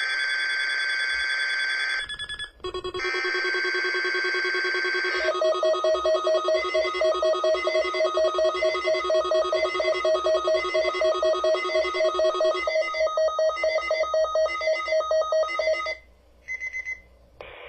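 An alert-equipped weather radio sounding its electronic alarm, set off by the Weather Radio Canada test broadcast. Steady tones for the first few seconds give way to rapid beeping at about four beeps a second, which cuts off about 16 seconds in.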